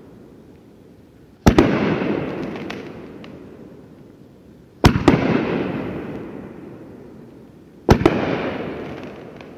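Brothers Pyrotechnics Engine No.9, a 16-shot 500-gram fireworks cake, firing: three loud booms roughly three seconds apart, each followed by a rumbling echo that fades over a couple of seconds, with a few faint crackles between them.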